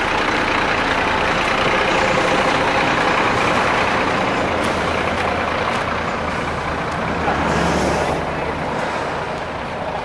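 Large vehicle engine, a bus at the roadside stop, running steadily, with short hisses about five and eight seconds in.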